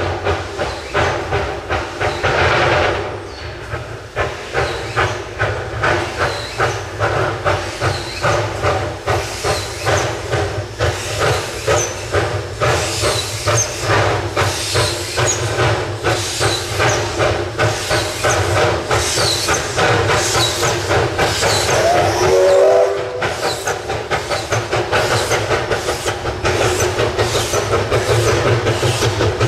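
Narrow-gauge Hudswell Clarke steam locomotive working hard up a steep grade, its exhaust beating about one and a half times a second over a steady hiss of steam. The beats quicken over the last few seconds. A brief rising squeal comes about three-quarters of the way through.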